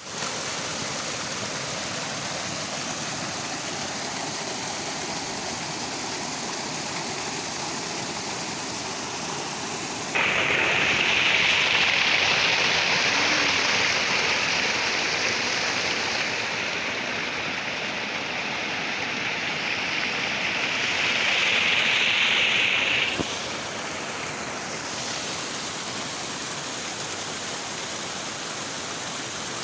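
Water of a small stream rushing steadily. It turns abruptly louder and hissier about ten seconds in and drops back just as abruptly about thirteen seconds later.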